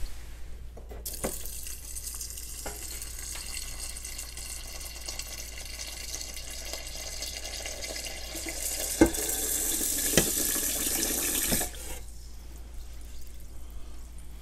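Kitchen faucet running water into a rice cooker's inner bowl of rinsed rice, filling it to the 4 line. The water starts about a second in and stops at about 12 s, with two light knocks shortly before it stops.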